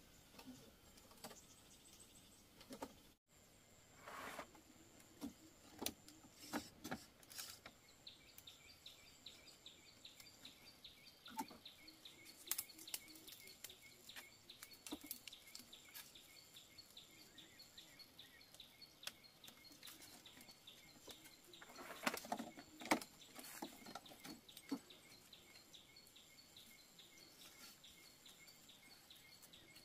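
Faint outdoor ambience. A rapid, evenly repeated high chirping starts about eight seconds in and runs on, with a thin steady high whine and scattered light knocks, a cluster of them near the middle-end.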